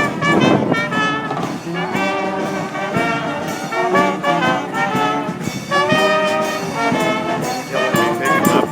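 A brass band playing a tune live, several horns sounding in harmony through a run of changing notes.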